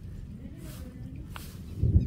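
Short hand broom sweeping chopped fodder on a wet brick floor: two brief swishes. A low rumble runs under them and grows much louder near the end.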